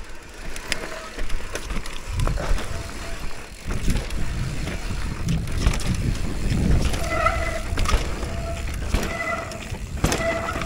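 Downhill mountain bike riding over a rough trail: tyre rumble and rattling knocks that pick up about two seconds in.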